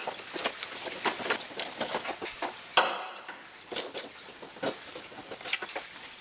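Socket ratchet on an extension clicking in short runs while backing out small bolts, mixed with light metal clinks of tool and bolts; the sharpest clink comes about three seconds in.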